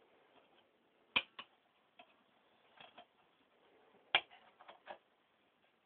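Clicks and light taps of a plastic DVD case being handled, with two sharper snaps, one about a second in and one about four seconds in.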